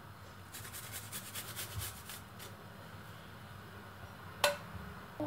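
Garlic cloves being grated on a hand-held metal grater: a run of quick scraping strokes about half a second in, a few more about two seconds in, then a single sharp click near the end.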